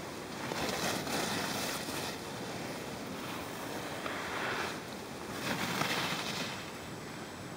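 Wind rushing over open snow in gusts, with a steady hiss that swells three times and then settles.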